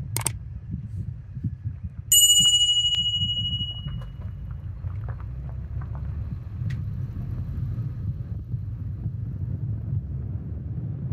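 A mouse-click sound effect, then about two seconds in a bright bell-like notification chime that rings out and fades over about a second and a half: the sound of a YouTube subscribe-button animation. A steady low rumble runs underneath.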